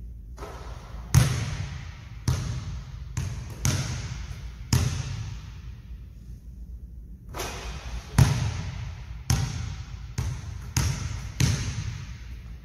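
A basketball bouncing on a hardwood gym floor, dribbled between shots: about a dozen sharp bounces, each echoing in the gym, with a pause of a couple of seconds around the middle.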